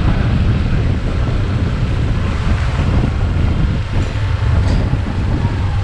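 Motorbike riding on the road: a steady, loud low rumble of engine and wind buffeting the microphone.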